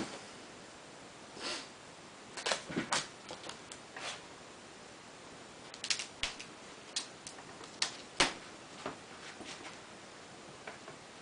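Irregular sharp clicks and light knocks from hand work on a tent's stove jack, in uneven clusters with short pauses between.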